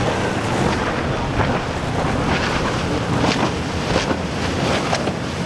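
Wind buffeting the microphone over the wash of waves and a boat running through the inlet, with several brief gusts or splashes cutting through.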